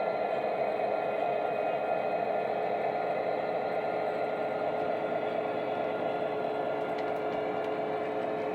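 Sound-fitted Hattons Class 66 model locomotive, its sound decoder playing a Class 66 diesel engine sound through an EM2 speaker as the model runs. It is a steady engine drone with a few held tones over it and no changes in note.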